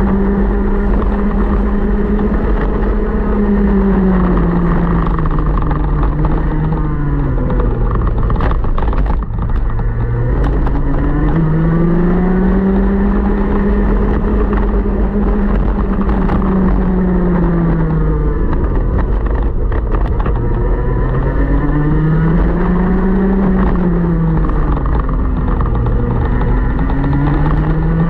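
125cc two-stroke TaG kart engine under racing load, rising in pitch as it pulls through the gears-free drive and falling off as the kart slows for corners, four times over; it dips lowest about nine seconds in.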